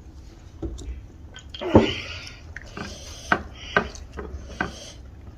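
Close-up eating sounds: wet chewing and smacking with a series of short sharp clicks and taps against dishes, and one louder noisy burst a little under two seconds in.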